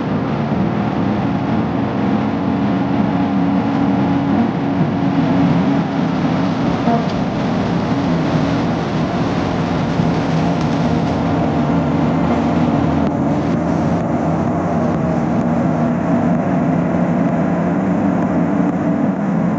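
Steady motor-vehicle noise: an engine running with road noise, holding an even level throughout.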